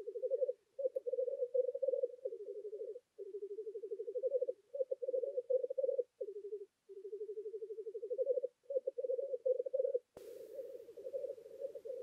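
Black grouse cocks bubbling (rookooing) at their spring lek: a low, rapidly pulsing cooing in long phrases with brief breaks.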